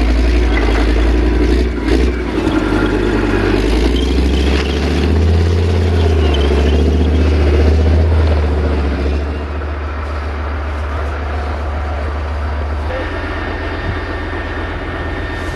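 Heavy military vehicle's engine running with a deep, loud drone, easing off about nine seconds in and staying lower after that.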